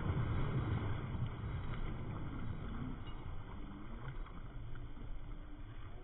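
Water splashing as two large dogs run and wade through lake shallows, dying down as they slow to a stand.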